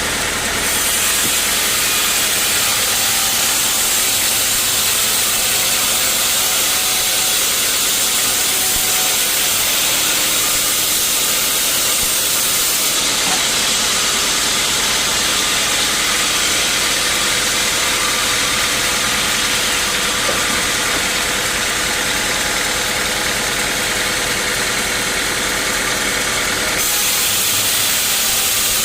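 Portable band sawmill running: steady engine hum under the dense hiss of the blade, with the sound changing abruptly twice.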